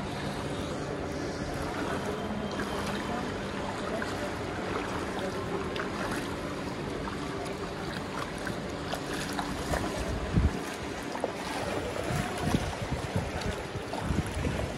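Shallow floodwater sloshing and splashing around people's legs as they wade through it, with a steady low hum in the first few seconds. Near the end come a few sharp knocks and rustles as they step out of the water into a doorway.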